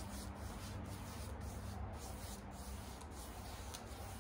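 Paintbrush swishing faintly across a painted furniture top in short strokes, over a steady low hum.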